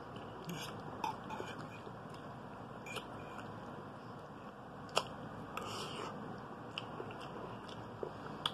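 Quiet, close-up chewing of soft egg noodles, with a few light clicks of a metal fork on the plate; the sharpest click comes about five seconds in.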